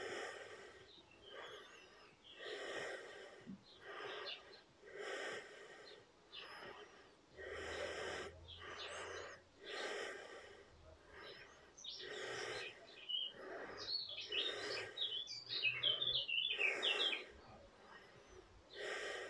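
A person breathing audibly in and out at a steady pace, roughly once a second, during a yoga pose. Birds chirp outside throughout, in a busier burst of quick chirps in the second half that is the loudest sound.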